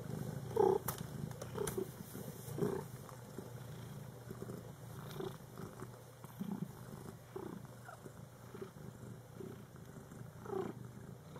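A cat purring steadily, with a few short higher sounds and faint clicks over it.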